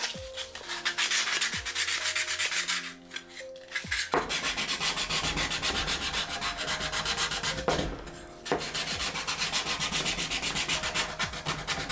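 Hand sanding a small plywood bulkhead plate with sandpaper: rapid back-and-forth rubbing strokes, pausing briefly about three and a half seconds in and again about eight seconds in.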